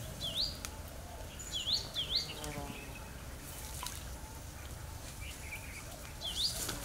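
Short, sharp bird calls, each a quick dip and rise in pitch, heard four times over a steady low background hum.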